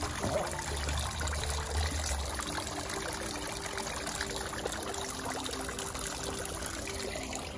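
Water from a tiered garden fountain trickling and splashing steadily as thin streams fall from its spouts into the bowls and the basin pool below.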